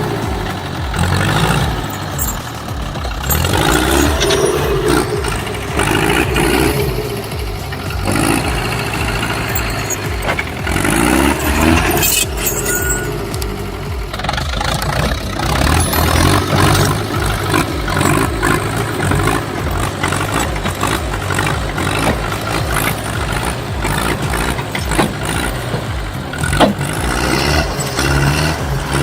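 Tractor engine running and revving under load, its pitch rising and falling, while it pulls at a tree stump.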